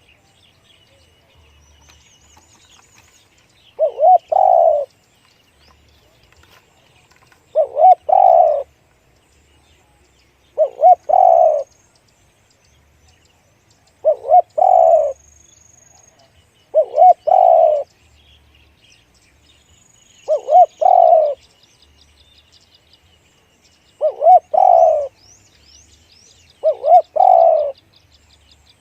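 Spotted dove cooing: eight calls roughly every three and a half seconds, each two short notes followed by a longer deep coo. Small birds chirp faintly behind it.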